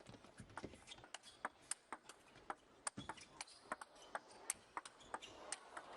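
Table tennis ball clicking off the rackets and the table in a rally, a sharp tick about every half second.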